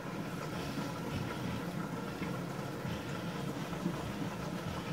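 Wet squishing of hands working shampoo lather through thick wet hair, over a steady low background hum.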